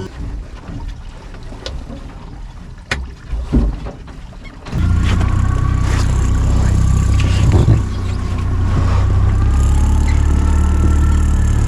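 Boat motor: a few scattered knocks and clicks, then about halfway through a loud, steady low engine hum sets in suddenly and keeps running.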